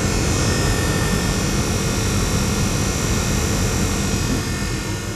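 Newly fitted replacement fresh air blower motor of a 1973–79 VW Super Beetle running, a steady whir and rush of air with a thin high whine on top. The fan works again after years burned out.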